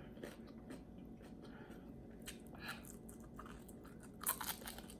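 Close-up crunching and chewing of crispy fried chicken wings: faint, irregular crackly crunches, with a louder burst of crunching about four seconds in.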